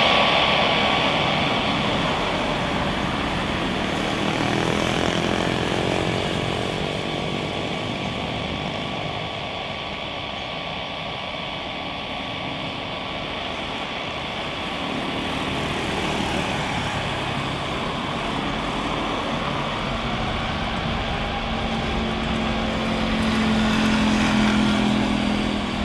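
Airbus A350 with Rolls-Royce Trent XWB turbofans running as the jet rolls along the runway: a steady jet roar with a high engine whine, growing louder near the end.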